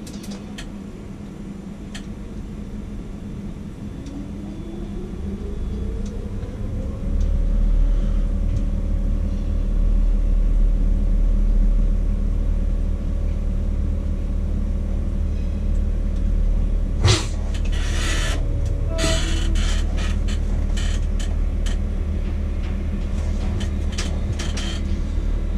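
Tower crane hoist drive running up to speed, lifting a load: a low rumble with a whine that rises in pitch over a few seconds, then holds steady as the hoist runs on at full speed. A sharp click comes about two-thirds of the way through, followed by scattered ticks.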